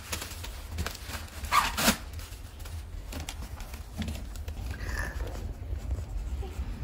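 Cardboard box flaps being handled and pulled open, with short scrapes and rustles of the cardboard, loudest about a second and a half in.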